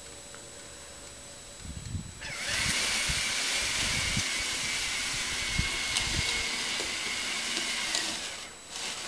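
A small electric motor spins up with a high whine and runs steadily for about six seconds with a loud hiss, then stops. It comes back in a short burst near the end. A few low knocks come just before it starts.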